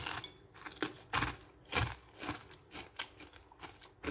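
Crispy fried batter of a banana fritter crunching as it is chewed: a run of irregular crunches about two a second, the loudest about a second and almost two seconds in.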